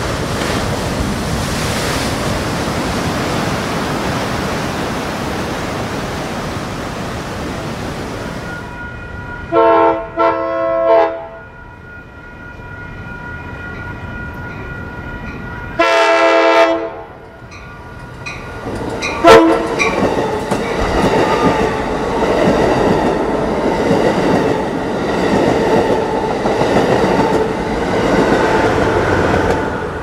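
Passenger locomotive's multi-chime air horn blowing for a grade crossing: two blasts about ten seconds in, a longer one near sixteen seconds and a short one near nineteen, each a chord of several tones. Before and after the horn, the steady rush and wheel clatter of the train on the rails.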